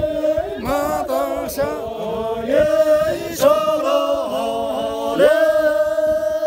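A group of men singing a song together, unaccompanied, with long held notes. The longest note begins about five seconds in.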